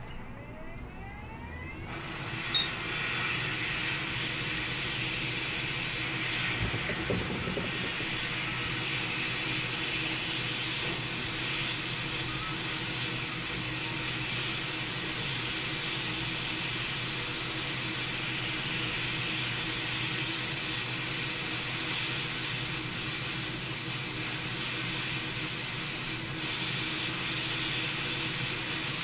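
Hot air rework station blowing at 480 °C to desolder a laptop motherboard connector. Its fan whines up in pitch over the first couple of seconds, then settles into a steady hiss of air.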